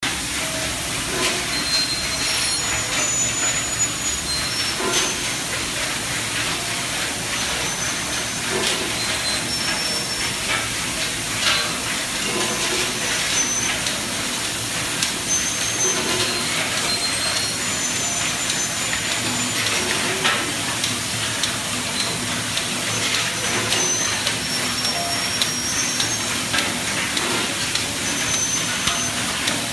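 Professional egg-cracking and separating machine running: conveyors and the rotating cracker's arms clatter steadily over a constant hiss, with frequent irregular clicks and short high squeaks.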